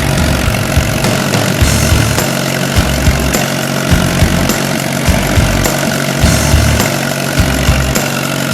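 Allis-Chalmers WD tractor's four-cylinder engine running at low speed, its low throb pulsing unevenly, with sharp clicks now and then.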